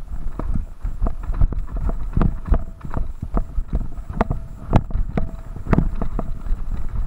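Mountain bike clattering down a rough dirt trail: a quick, irregular run of sharp knocks and rattles as the bike hits bumps, over a steady low rumble.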